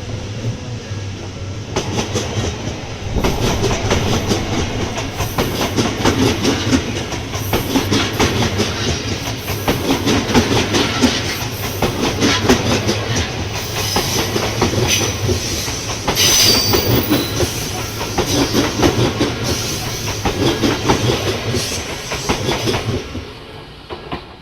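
An Odakyu electric train passing over a level crossing, its wheels clattering rhythmically over the rail joints. The sound builds about two seconds in and fades out near the end. A brief high wheel squeal comes about two-thirds of the way through.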